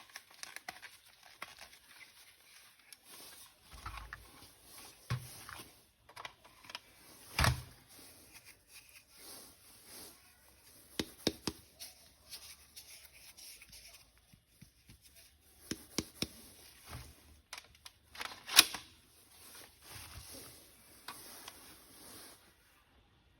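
Hands handling plastic toy parts and packaging: irregular small clicks, rustles and light knocks, with a sharper knock about a third of the way in and the loudest click in the last third.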